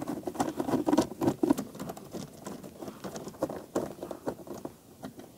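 Ratchet screwdriver with a 10 mm socket clicking as it undoes the bolts holding a scooter seat: a quick run of clicks at first, growing sparser and fainter near the end.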